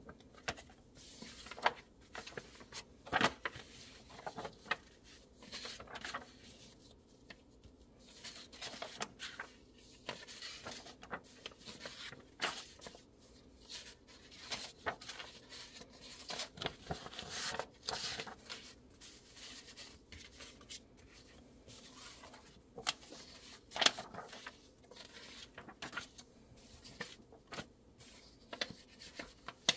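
Paper sales brochures being leafed through and slid over one another by hand: irregular rustling with sharp page flicks, the sharpest about three seconds in and again near the end.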